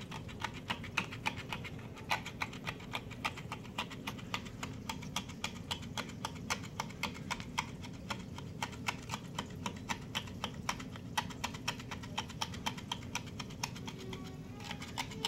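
Magnetic aquarium glass cleaner with a razor blade attachment scraping algae off the inside of the tank glass: rapid, irregular clicking and ticking, several clicks a second, over a steady low hum.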